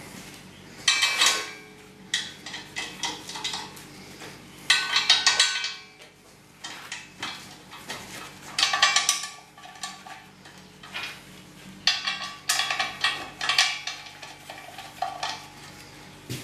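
Metal clanking and rattling in a series of short bursts, a small electric hoist and the steel plates around it being handled and shifted on a steel workbench.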